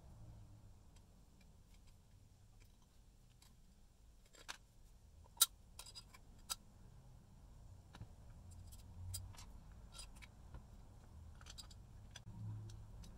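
Scattered faint clicks and taps from small parts or tools being handled, with one sharper click a little past five seconds in and a couple of lighter ones just before and after it.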